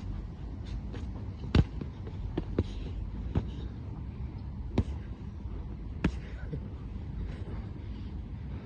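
Boxing gloves hitting as punches land in sparring: a few sharp, irregular hits, the loudest about one and a half seconds in, over a steady low background rumble.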